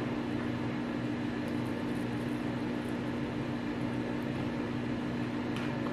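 Steady low room hum with a constant low tone, with no distinct sounds over it.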